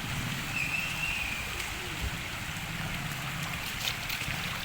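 Heavy rain falling, with rainwater running and gurgling, a steady hiss.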